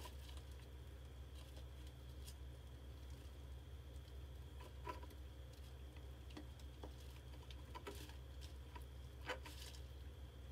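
Faint scattered scratches and taps from mice moving inside a plastic water-bottle mouse trap, half a dozen small clicks spread irregularly, the sharpest right at the start and another about nine seconds in, over a steady low hum.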